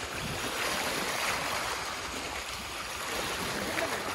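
Steady outdoor wash of sea water lapping at a rocky shoreline, mixed with wind noise on the microphone.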